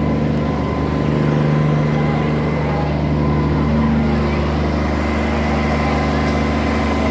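A motor vehicle's engine running steadily at idle, an even, unchanging low hum.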